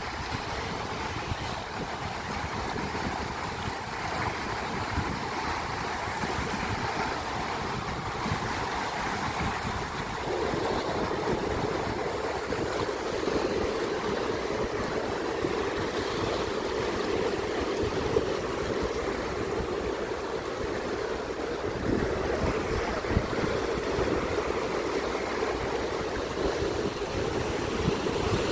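Ocean surf washing steadily against the beach and rocks, a continuous rushing noise that grows a little fuller about ten seconds in.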